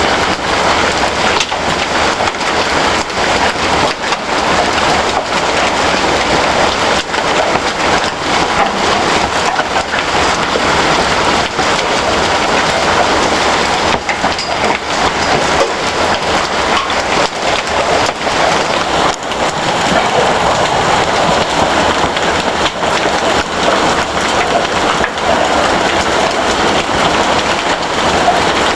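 Heavy hailstorm: hailstones and rain pelting down in a dense, steady patter of countless hits.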